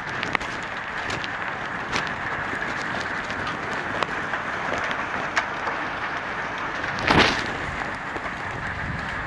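Steady rain falling hard during a thunderstorm, with sharp drip ticks now and then and a brief louder rush about seven seconds in.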